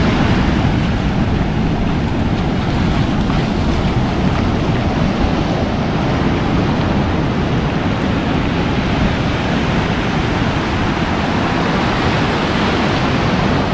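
Ocean surf breaking and washing up a sandy beach, a steady rushing noise without a break.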